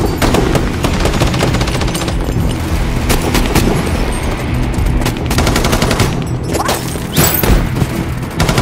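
Movie shootout sound mix: rapid, repeated automatic rifle fire from several guns, with a film score playing steady low notes underneath.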